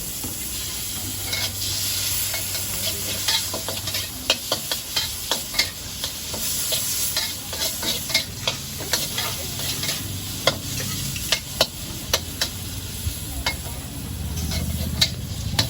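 Stir-frying in a wok: food sizzling steadily while the spatula strikes and scrapes the pan in quick, irregular clanks.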